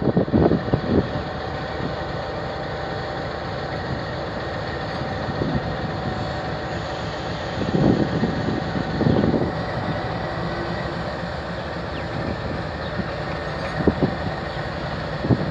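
GE 7FDL-12 diesel prime mover of a GEU-20 locomotive running as the locomotive passes close by, a steady drone with a few louder low rushes about 8 and 9 seconds in and again near the end.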